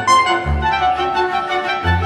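Background music: an instrumental tune with a regular bass note about twice a second.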